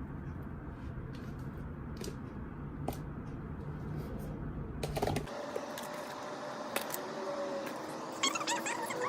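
Slime being mixed and kneaded by hand, giving scattered small sticky clicks and pops. About five seconds in the low background rumble drops away and faint steady tones come in.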